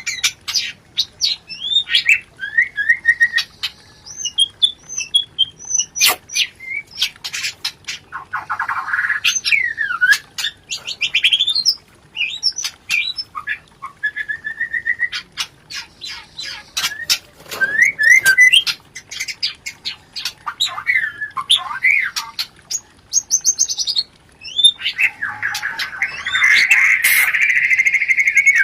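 White-rumped shamas (murai batu) calling: quick whistled notes and glides mixed with many sharp clicking notes, the chattering 'rencetan' of shamas in breeding condition. A dense, continuous chatter sets in near the end.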